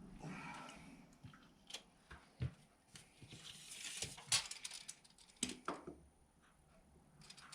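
Scattered light clicks, taps and knocks with faint rustling, from tools and parts being handled during a mini split head installation; the sharpest knocks come about four seconds in and again near the end.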